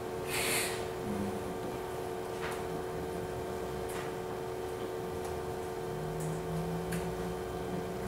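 A steady hum under a few sharp, isolated clicks of laptop keys being typed, spaced a second or more apart, with a short breathy hiss about half a second in.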